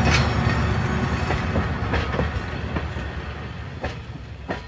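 A train rolling along, with a low rumble and the uneven clack of wheels over rail joints, fading steadily away.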